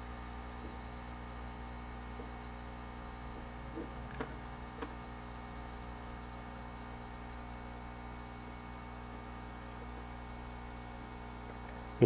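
Steady electrical mains hum with a faint high whine over it, and a few faint small ticks about four seconds in.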